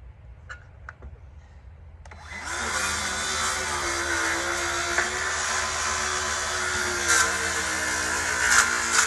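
An electric power tool starts about two seconds in: its motor whine rises as it spins up, then runs steadily at full speed. A few sharp cracks come over it, typical of a blade working through pallet wood.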